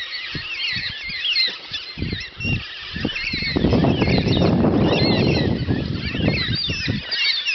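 Many birds chattering and calling at once in quick high chirps. Underneath, a low rumbling noise swells for a few seconds in the middle and is the loudest sound.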